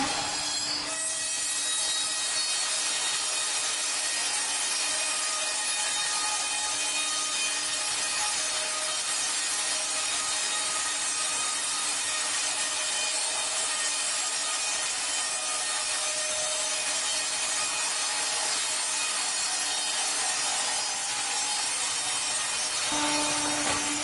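Wimmer BN 110 S horizontal band sawmill's blade sawing lengthwise through a log in one long, steady pass, a dense even hiss. The cut starts about a second in and ends just before the end, leaving the steady hum of the running machine.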